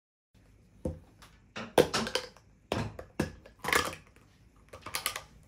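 Handling a glass food container with a snap-lock plastic lid: a series of sharp plastic clicks and knocks as the lid's clip flaps are unsnapped and the lid is lifted off.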